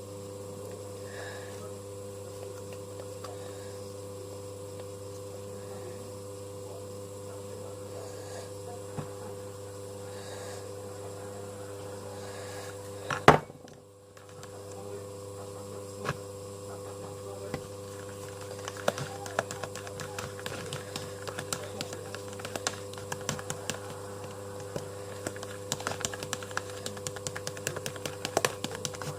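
A steady electrical hum throughout, with one sharp knock about halfway through, then a long run of irregular light clicks and taps, like typing on a keyboard.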